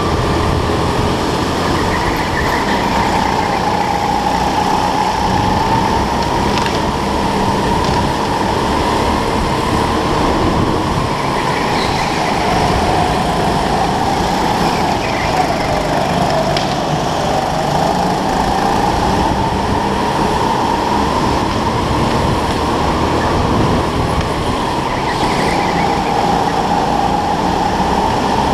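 Onboard sound of a racing go-kart lapping a track, its motor running steadily with a tone that falls and rises in pitch every few seconds as the kart slows for corners and speeds up again, over a low rumble.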